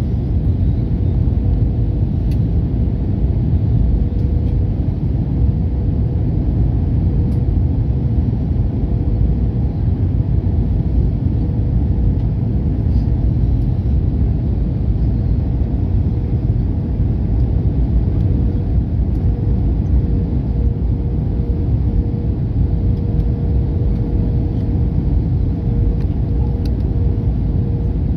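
Airliner cabin noise on approach: a steady low rumble of the engines and airflow over the fuselage, with a faint steady hum running through it.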